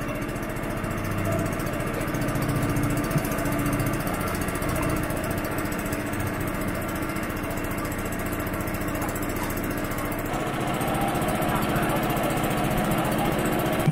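Small boat motor running steadily under way, pushing the boat across the lake, with a slight rise in loudness near the end.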